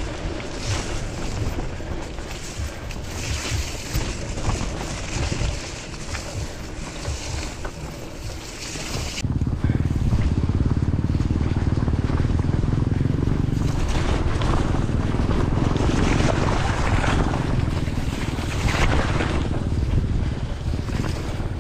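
Wind buffeting the camera's microphone on a moving bicycle, with the tyres rolling and splashing through wet mud and puddles. About nine seconds in it changes abruptly to a louder, deeper rumble.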